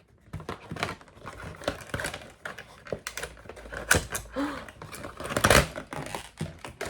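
Cardboard doll packaging being pulled apart by hand: a quick, irregular run of clicks, taps, scrapes and rustles of cardboard and plastic as the doll's insert is worked out of its box. The loudest scrape comes about two thirds of the way in.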